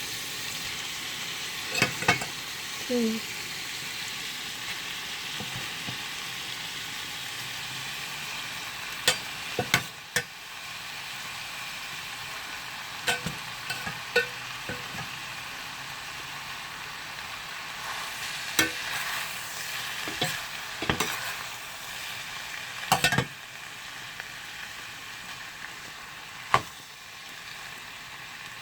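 Pork, onion and tomato sizzling in a frying pan while being stirred, the cooked mung beans being mixed in, with a utensil clinking against the pan every few seconds.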